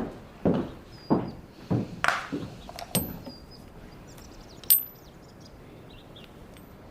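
Hard-soled footsteps on a hard floor, about one and a half steps a second, stopping about three seconds in. A single sharp metallic click with a brief ring follows near five seconds in.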